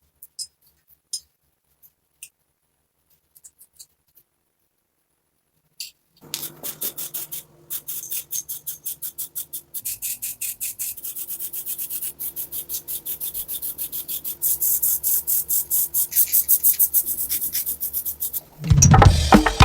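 Quick, regular back-and-forth abrasive rubbing strokes, several a second, worked on a part being repaired, after a few scattered light clicks. Drum-led music comes in near the end.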